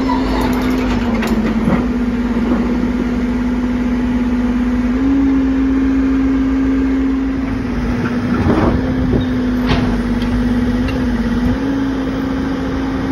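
Backhoe loader's diesel engine running steadily under hydraulic load as its boom pushes the dump trailer, the engine note stepping up slightly twice. A few short metallic knocks around the middle.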